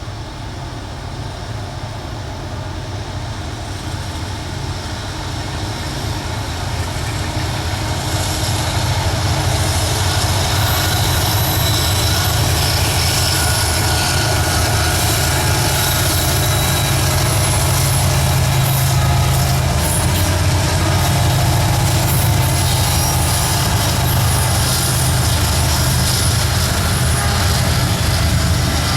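Eastbound intermodal freight train passing behind diesel locomotives. It grows louder over the first eight seconds or so, then holds a steady loud rumble of engines and cars with thin, high wheel squeal.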